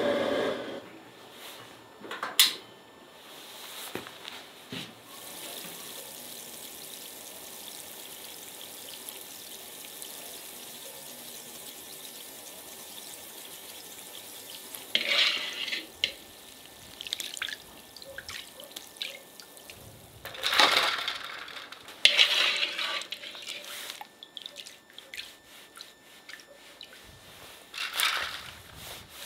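Water poured and splashing in several short bursts, with dripping and a steady faint hiss between them, and a sharp click about two seconds in.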